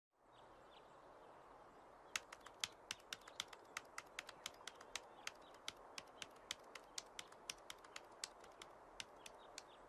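Faint typing on a laptop keyboard: irregular key clicks, three or four a second, starting about two seconds in, over a faint hiss.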